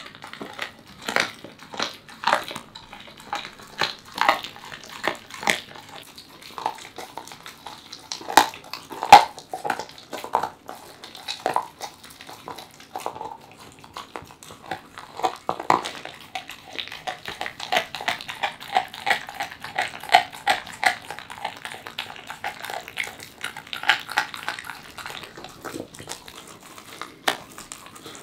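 Welsh corgi chewing raw chicken: irregular wet crunches and smacks, about one a second at first, then quicker, denser chewing in the second half.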